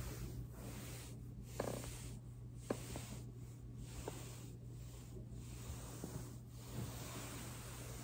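Foam roller rolled back and forth under the hip and thigh on carpet: a soft rubbing swish that swells and fades with each pass, with a few light clicks, the sharpest about two and a half seconds in.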